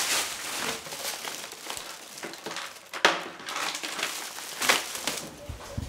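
Plastic bags crinkling and rustling as they are handled and rummaged through, with one sharp click about three seconds in.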